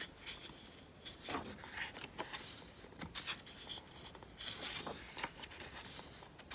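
Pages of a photo book being turned by hand: soft paper rustles and slides, several times.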